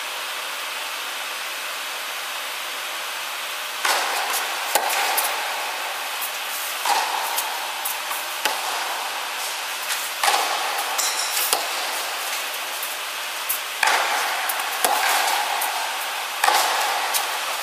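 Tennis ball being struck by rackets and bouncing on a hard court during a rally. Sharp, echoing pops come every one to two seconds over a steady hiss. The first few seconds hold only the hiss.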